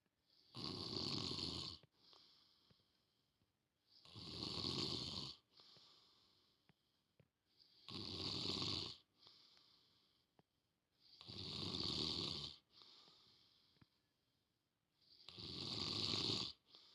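A man snoring in deep sleep: five rasping snores, each a second or so long, coming about every three and a half to four seconds, with a softer breathy sound between them.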